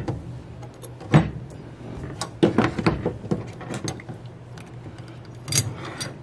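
Metal parts of a Chrysler TorqueFlite 727/904 transmission valve body clicking, clinking and knocking on a bench as the pressure regulator spring bracket is lifted off by hand. The loudest knock comes about a second in, a cluster of clinks follows between two and three seconds, and another comes near the end.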